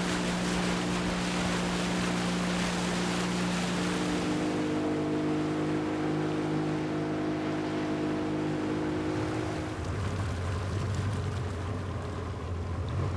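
Small open boat's motor running under way, with water and wind rushing past. About four seconds in the engine note shifts and the rushing fades. Near ten seconds the motor drops to a lower, deeper hum as the boat slows by the mangrove edge.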